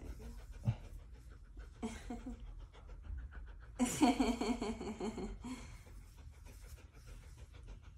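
Golden retriever panting quietly and rapidly, with a louder voiced sound, a laugh or a whine, lasting a second and a half about four seconds in.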